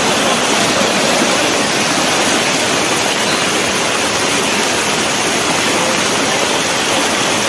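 Fast-flowing floodwater rushing across a road: a steady, loud rush of water.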